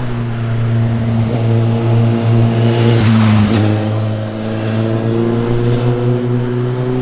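A sport motorcycle engine passes by at fairly steady revs, loudest about three seconds in. Its pitch then climbs gradually over the last couple of seconds as it picks up revs.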